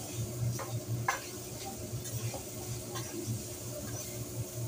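Metal spatulas scraping and tapping on a hibachi flat-top griddle as fried rice is chopped and turned, with a steady sizzle underneath. The scrapes and clicks come irregularly, roughly one or two a second.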